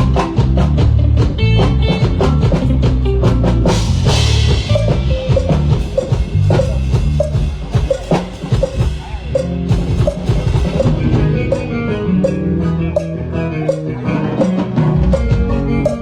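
Live band playing at a sound check: drum kit with a fast, steady beat over low bass notes, a cymbal crash about four seconds in, and pitched instrument notes joining in the second half.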